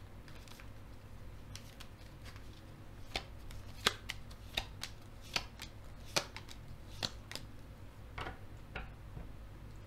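Tarot cards being shuffled and handled by hand: irregular sharp snaps and flicks of the card stock, about one or two a second, the loudest near the middle.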